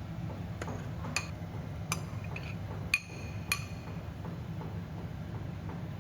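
Tableware clinking: five light, ringing clinks in the first few seconds, like a utensil tapping a dish or glass, over a steady low hum.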